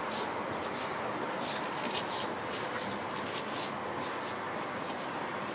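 Steady distant city background noise, with short high rustling hisses on top, about two a second.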